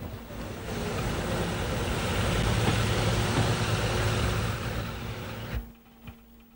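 Narrow-gauge diesel railcar train running: a rumble with a steady low engine drone that swells over a couple of seconds, holds, then fades and cuts off abruptly near the end.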